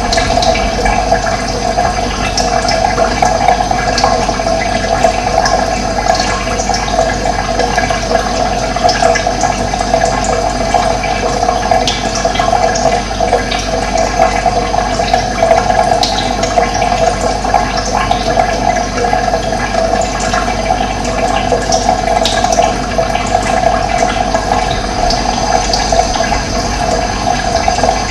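Steady flow of running water, with faint short high bird chirps now and then.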